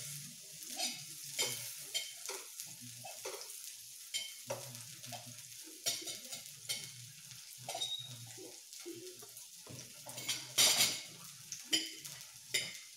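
Meat sizzling on an electric tabletop raclette grill, with the clicks and scrapes of a utensil on the grill plate and dishes, and one louder burst about ten and a half seconds in.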